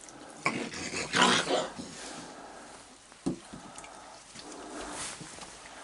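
Raccoons snarling and hissing at one another in harsh, noisy bursts, loudest about a second in, followed by a single short knock a little after three seconds.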